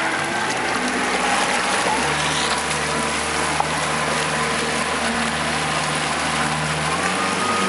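Motorboat engine running under way while towing, its note stepping up about two seconds in and shifting again near the end, over a steady rush of water and wind.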